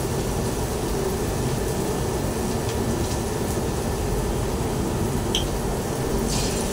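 Steady rushing background hum, with a few faint clicks near the end.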